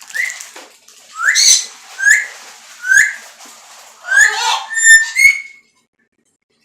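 Pet parrot giving a run of about six short whistles and squawks, several sweeping upward in pitch; the calls stop a little over five seconds in.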